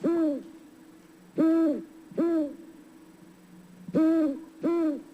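Owl hooting: five hoots, a single one, then two pairs, each rising and then falling in pitch.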